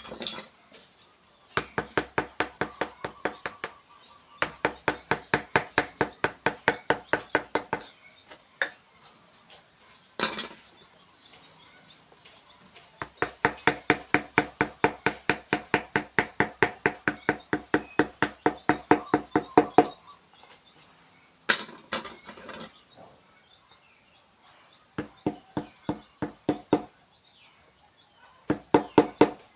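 A mallet tapping a wood-carving chisel into wood in quick runs of light strikes, about five or six a second, each with a short ringing tone. The runs last from one to seven seconds, with pauses between them.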